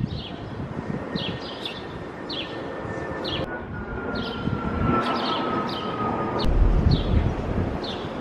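City street background noise with a low traffic rumble that grows heavier toward the end, and small birds chirping repeatedly in short falling chirps. A faint steady whine slowly drops in pitch through the middle.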